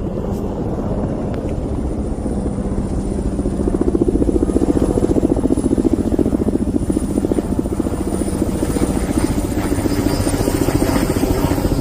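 Helicopter rotor beating with a fast, even chop, growing louder about four seconds in as it comes closer: a firefighting helicopter working over the wildfire.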